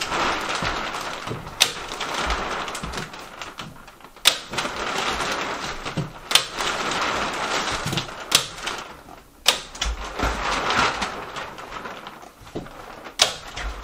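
Polyethylene vapor-barrier sheeting rustling and crinkling against the ceiling, with about six sharp staple-gun clicks as the plastic is stapled up.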